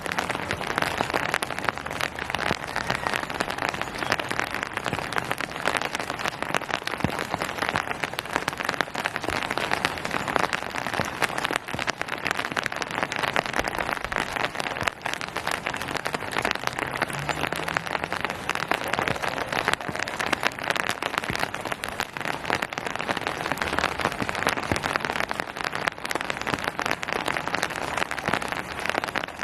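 Steady rain falling on hard surfaces and foliage, a dense pattering of drops. It is even, with no let-up.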